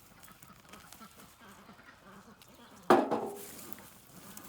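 A goat bleats once, loud and sudden, about three seconds in, over faint rustling.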